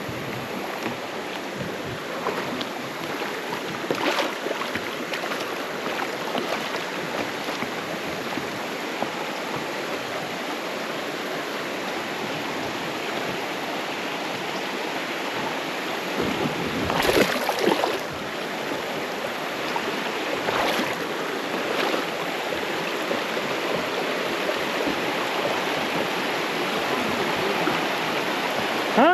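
Shallow creek riffle rushing over rocks, a steady hiss of running water. A few brief louder surges break in, the biggest a little past halfway.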